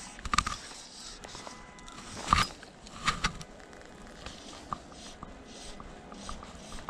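Fly line stripped in by gloved hands in short pulls, giving soft swishes about twice a second in the second half, with a few sharp clicks and knocks from handling the rod in the first half, the loudest about two and a half seconds in. A faint steady hiss of stream water lies underneath.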